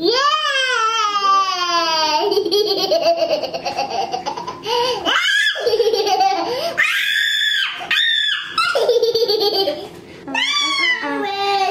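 A toddler laughing: a long falling vocal sound at the start, then bursts of giggling with high-pitched squeals in the middle and near the end.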